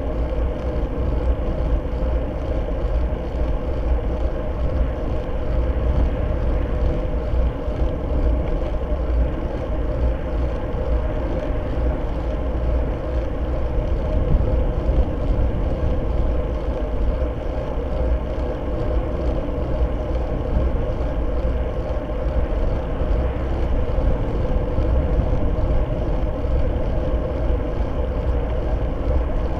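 Steady wind rush and road rumble picked up by a bicycle-mounted Fly6 camera while riding at racing speed on asphalt. It is a constant low noise with no distinct events.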